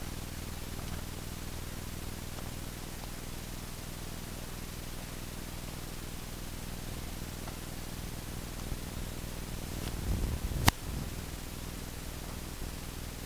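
Footsteps of soft-soled leather moccasins (Stalkasins) on loose desert gravel, barely audible as faint scattered ticks under a steady hiss. A low rumble and one sharp click come about ten and a half seconds in.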